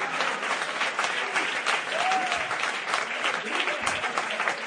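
A crowd applauding, many hands clapping densely and steadily, with voices mixed in and a short rising-and-falling call about two seconds in.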